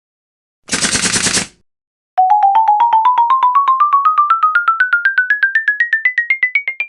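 A short rattling burst, then a long run of quick electronic beeps, about ten a second, climbing steadily in pitch before cutting off suddenly: a synthesized rising-tone comedy sound effect.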